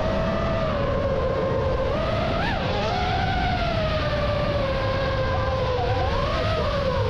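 FPV racing drone's motors and propellers whining, the pitch wavering up and down with the throttle and briefly spiking about two and a half seconds in, over a steady low rumble.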